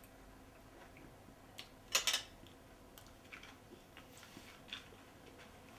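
Quiet room tone broken by a few small sharp clicks, the loudest a quick double click about two seconds in.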